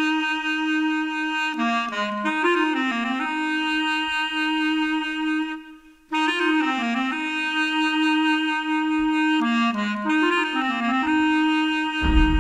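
Music: a solo woodwind plays a slow, ornamented melody in two phrases, with a brief break about halfway through. The full band comes in near the end.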